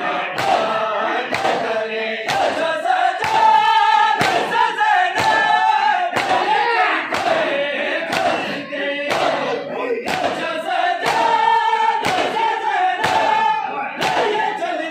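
A group of men chanting a noha in unison, with rhythmic open-hand slaps on bare chests (matam) landing about twice a second in time with the chant.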